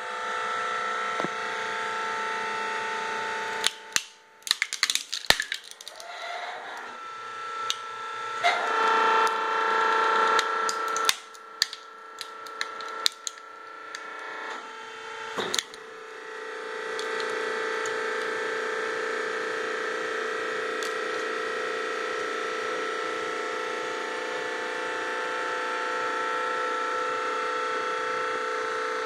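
Plastic computer mouse being crushed under a press ram: a run of sharp cracking and crunching as the shell breaks, from about four seconds in until about halfway through. Before and after it, the press's motor runs with a steady hum.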